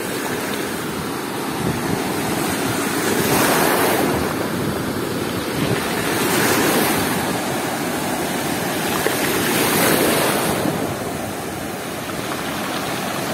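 Rough Black Sea surf washing in and out over a stony, pebbly shallows, rising and falling in about three surges as the waves run in.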